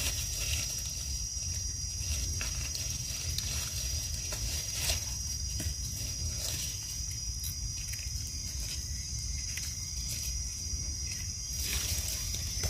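Dry leaves rustling and crackling in short bits as a hand picks through forest leaf litter, over a steady high-pitched insect drone and a low rumble.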